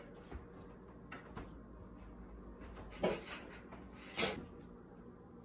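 A man stifling laughter: two short puffs of breath about a second apart, over quiet room tone.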